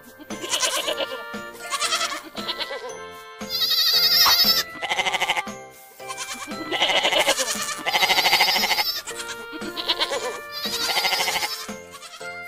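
Goat bleating over and over, about eight quavering bleats in a row with short gaps, over a light background tune.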